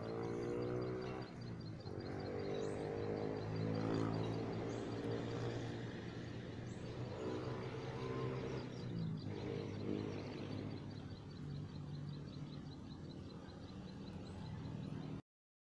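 A low, steady droning hum with a few short high bird chirps and a rapid, even high-pitched ticking over it; everything cuts off abruptly near the end.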